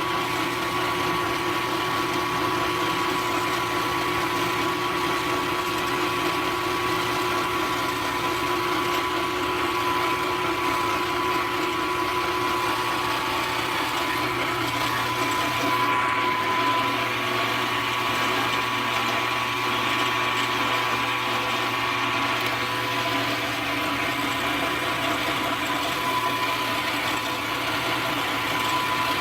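Milling machine running steadily as a 4-flute end mill takes the final cutting pass along a slot in a drill press spindle, with a constant hum and whine.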